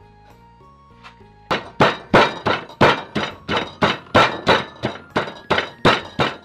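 Wooden pestle pounding shredded green papaya and carrot in a wooden mortar: a steady run of dull thunks, about three a second, starting about a second and a half in. Background music plays underneath.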